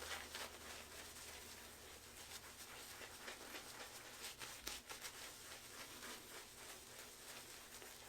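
Faint, soft rubbing and light crackling of a wet synthetic shaving brush working soap lather on the face, over a low steady hum.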